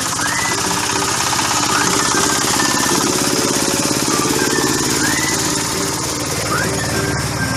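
Single-cylinder diesel engine of a công nông farm cart running hard with a rapid, even knocking beat, working under load as the drive wheel churns through mud.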